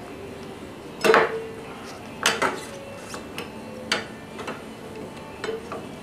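Sharp metal clinks and knocks from a motorcycle's rear wheel and brake caliper parts being worked into place by hand, about six over the span, several with a short ring.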